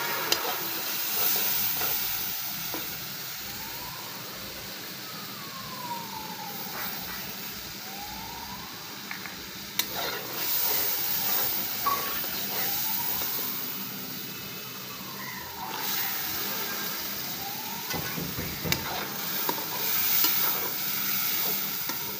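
Masala and chickpeas sizzling in oil in a steel karahi, stirred with a metal ladle that clinks sharply against the pan a few times. A faint wailing siren rises and falls in the background through the middle of the stretch.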